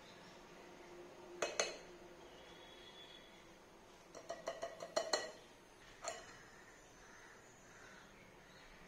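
Kitchen utensils knocking and clinking against a bowl or dish: two knocks, then a quick run of about half a dozen taps, then one more knock.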